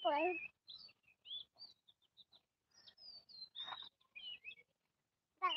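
Small birds chirping: many short, high chirps and quick rising and falling notes scattered throughout, with a brief wavering voice at the very start.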